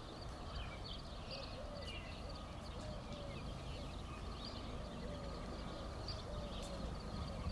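Songbirds chirping over the low, steady rumble of a distant diesel locomotive hauling an empty coal train.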